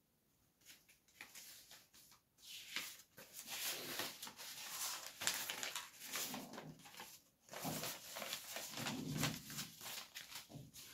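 Faint scratching and scattered clicks of a pen writing.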